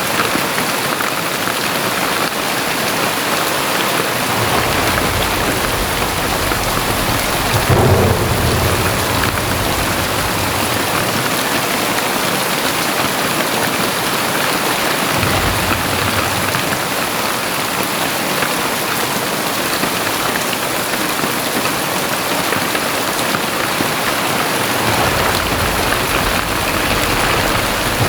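Very heavy rain falling in a dense, steady hiss. Deep rumbles swell and fade under it several times, the loudest about eight seconds in.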